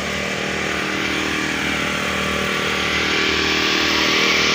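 An engine running with a steady hum, under a rushing noise that grows gradually louder.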